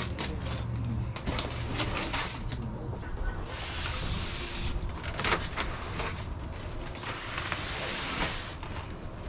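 Cardboard box being handled and opened: rustling, scattered knocks and taps, and two longer scraping stretches, about four and seven seconds in, as a foam-wrapped van window is slid out of its carton.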